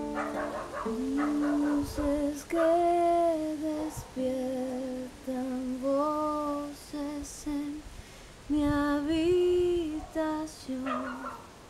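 A woman singing slow phrases of long held notes with vibrato, accompanying herself on a nylon-string classical guitar.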